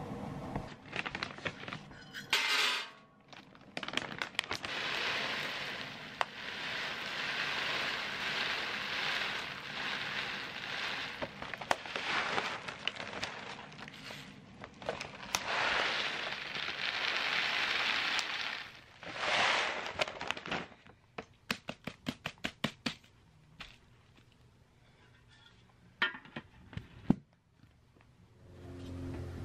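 Dry rabbit pellets rustling and rattling as a hand scoops and stirs through them in a canister, in long spells with short pauses. A quick run of sharp clicks comes about three quarters of the way through, and a single knock near the end.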